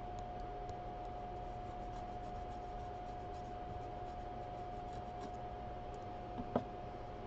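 Faint scratching of a metal scraper drawn across a BGA reballing stencil, spreading solder paste into the holes. A steady electrical hum runs underneath, and there is a single sharp click about six and a half seconds in.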